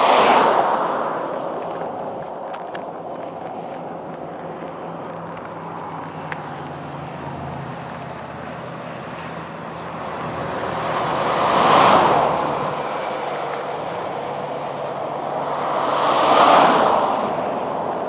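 Cars passing close by at highway speed, each one a swell of tyre and wind noise that rises and fades. One is passing right at the start, two more go by about two-thirds of the way in and near the end, and steady traffic noise runs between them.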